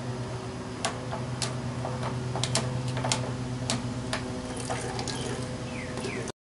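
Plastic clicks and knocks as the Igloo cooler's drain spout is worked open with a plastic pitcher held against it, then ice meltwater starting to trickle from the drain into the pitcher near the end, over a steady low hum. The sound cuts off suddenly.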